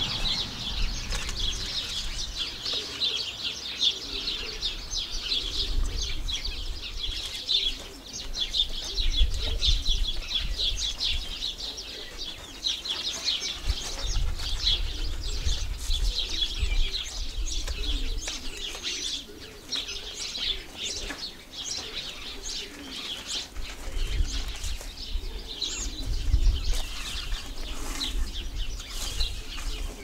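A flock of sparrows chirping and chattering continuously, many quick overlapping chirps.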